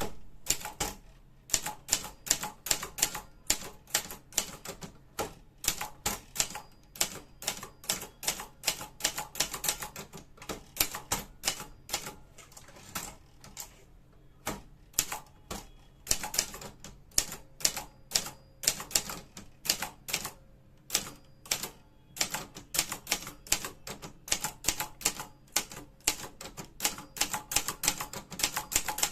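Brother Deluxe 250TR typewriter being typed on: runs of sharp key strikes, several a second, broken by a few short pauses.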